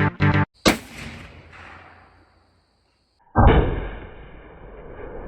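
.223 bolt-action rifle shot about a second in, its report fading away. A second loud blast follows a couple of seconds later, with a long fading tail and a faint steady high ringing.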